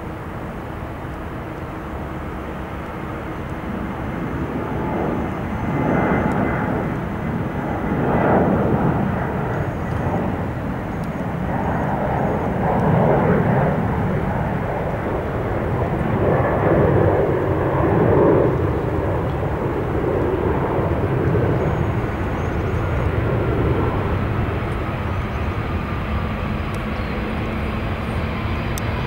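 Boeing 747-400ER landing: the noise of its four jet engines builds about five seconds in and swells in uneven surges for around fifteen seconds as the jet rolls down the runway, then settles to a steadier sound.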